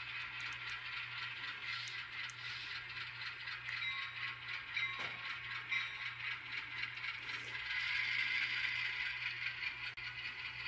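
HO scale model ALCO RS3 diesel locomotive rolling slowly along the track, its wheels and gearing making a fine, steady clicking rattle over a low steady hum.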